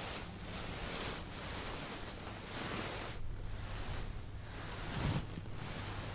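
Rain ambience: a steady hiss of rain that swells and eases every second or so.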